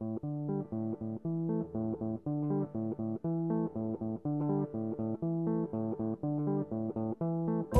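Background music: a steady, repeating line of low plucked-string notes, about three a second.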